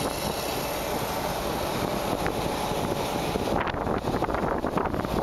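Steady road and wind noise heard inside a car cruising at highway speed. From about three and a half seconds in, uneven gusts of wind buffet the microphone.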